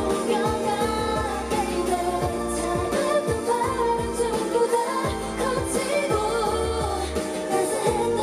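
Female K-pop group singing a pop song into handheld microphones over a backing track with bass and drums, played through the stage's speaker system.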